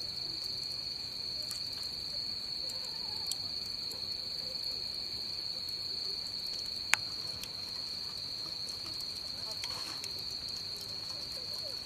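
Crickets chirping in a steady night chorus, a continuous high trill. There is one sharp click about seven seconds in and a few faint ticks.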